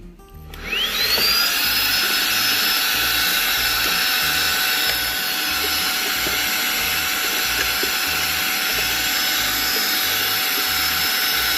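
Roidmi X20 cordless stick vacuum switched on: its motor spins up with a rising whine about half a second in, then runs steadily at a high pitch.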